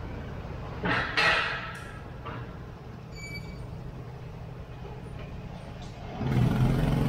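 City traffic heard from a moving motorbike: a steady engine rumble, a short loud hissing burst about a second in, and a brief high beep around three seconds. About six seconds in, a louder engine with a low steady pitch comes up and stays.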